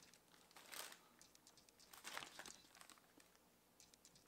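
Clear plastic packaging bag being handled, crinkling faintly in two short bouts.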